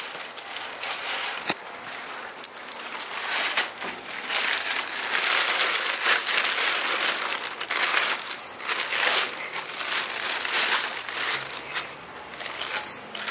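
Thin black plastic trash bags being pulled open and handled by hand: a continuous crinkling and rustling of plastic, loudest in the middle.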